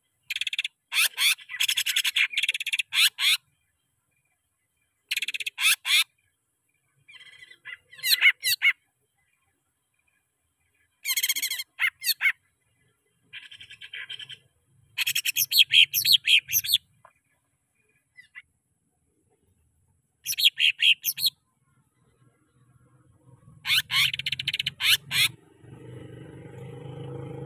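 Leafbird (cucak ijo) singing in about eight separate bursts of rapid, high warbling phrases, with silent pauses of a second or more between them. A low rumble fades in near the end.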